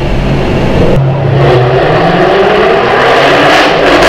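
Car engine running under way, heard from inside the cabin with road and wind noise; the sound swells louder about a second in as the car picks up speed.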